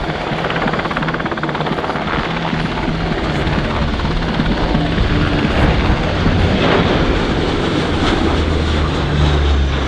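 Low flypast of military aircraft: a helicopter's rotor chop over steady engine noise, growing slightly louder as it passes.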